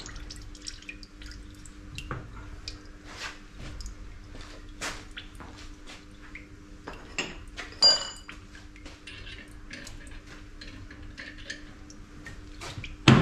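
Honing oil dripping off a freshly honed cylinder barrel into the honing machine's tray, with scattered light metal clicks and taps as the barrel is handled in its fixture. There is one ringing metal clink about eight seconds in and a sharp knock near the end, over a steady low hum.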